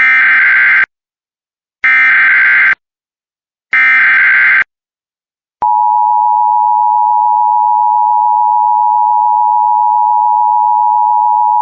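Emergency Alert System header: three short bursts of SAME digital data, about a second apart, like a harsh screech. About halfway in, a steady attention tone starts and holds.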